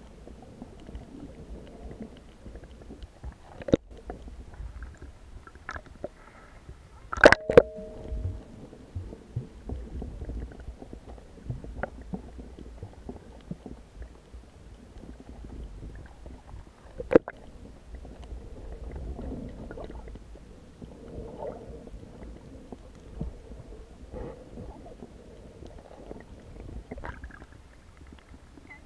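Underwater sound picked up by an action camera in its waterproof housing: a steady, muffled low rumble of water with scattered clicks and a few sharp knocks, the loudest about 7 seconds in and again about 17 seconds in.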